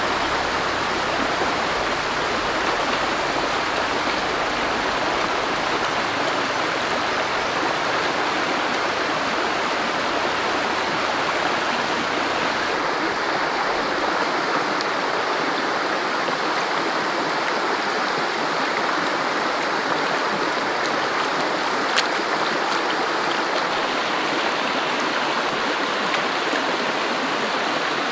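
Shallow rocky stream running over a small cascade, a steady rush of water. A little under halfway through the deepest part of the rush drops away, and about three-quarters of the way in there is a single sharp click.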